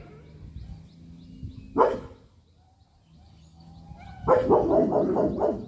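German Shepherd puppy barking: one short bark about two seconds in, then a quick string of barks near the end.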